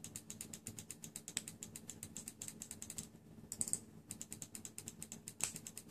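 Rapid, even ticking, about eight clicks a second, with a short pause about three seconds in. It comes from a bare coil in a rebuildable vape atomizer being dry-fired until it glows.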